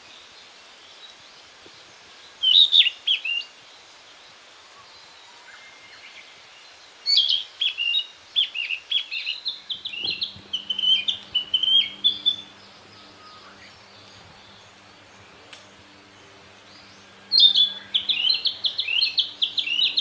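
Male narcissus flycatcher singing: a short phrase, then a long run of quick varied notes, then another run that starts near the end.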